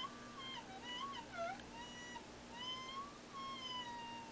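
Sine test tone from a signal generator, heard through a PAiA vocoder and audio amp, its pitch swept by hand up and down. It dips lower about a second and a half in, then rises and falls again near the end, with faint overtones above it. The sweep is a test of whether the vocoder's input 1 level overloads.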